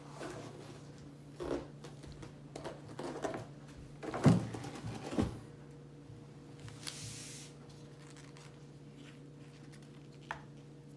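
Toy packaging and parts being handled: scattered light clicks and knocks, two louder knocks a little after four and five seconds in, and a short rustle about seven seconds in, over a steady low electrical hum.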